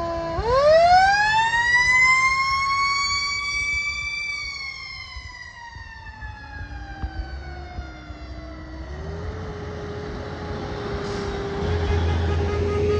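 Fire truck siren winding up, rising in pitch for about four seconds, then slowly winding down. A steadier, lower siren tone takes over later. Near the end the deep diesel engine rumble of a passing ladder truck grows loud.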